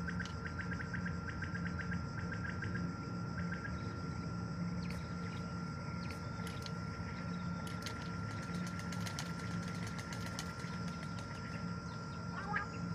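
A steady low mechanical hum with a faint steady high whine over it, and runs of quick faint ticks, about five a second near the start and scattered again in the second half.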